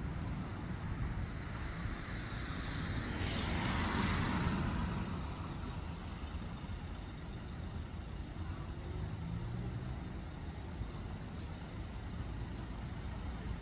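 Street traffic: a passing road vehicle swells up and fades away about three to five seconds in, over a steady low rumble of traffic.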